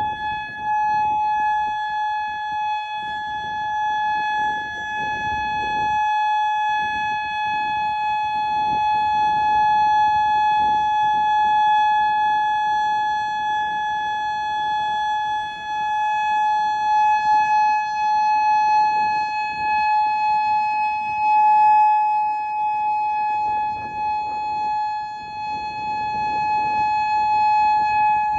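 Outdoor tornado warning siren sounding a loud, steady alert tone, heard from right underneath it: one held pitch with overtones that swells and fades slightly in loudness.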